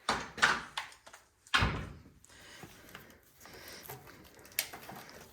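A few knocks and clunks of snowblower parts being handled and set down during engine disassembly, the loudest a dull thump about a second and a half in, with a lighter click near the end.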